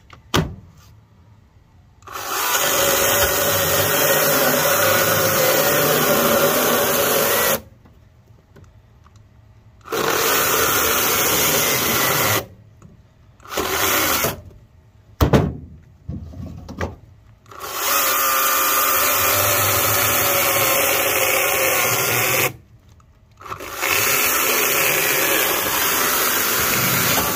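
Greenworks Commercial GS110 battery top-handle chainsaw cutting a log in several bursts, each a few seconds long. It cuts out suddenly between them and starts again, the stalling-out fault that the owner finds infuriating.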